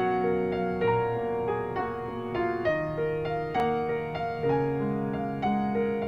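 Solo piano music: notes struck about twice a second over held lower notes, in a calm melodic line.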